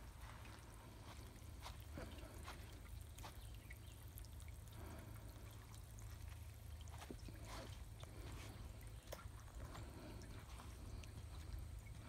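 Faint steady trickle and splash of water running through a small tire-built patio waterfall fountain, with a steady low rumble underneath.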